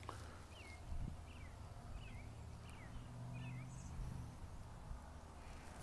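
A bird calling: a short chirp repeated about six times, roughly one every half second, stopping a little past the middle. Under it is a faint, low, steady hum.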